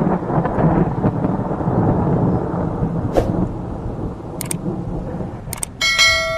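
Intro sound effect of rumbling thunder with a rain-like hiss and a few sharp crackles. Near the end a bright metallic ringing tone strikes and fades out.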